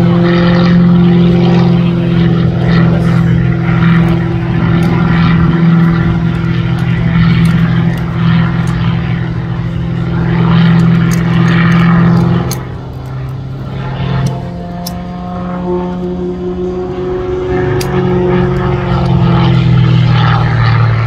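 Gamebird GB-1 aerobatic monoplane's propeller and six-cylinder Lycoming engine droning through aerobatic manoeuvres, its pitch shifting as the power changes. About twelve seconds in it drops in level and the tone steps up, then it builds again near the end.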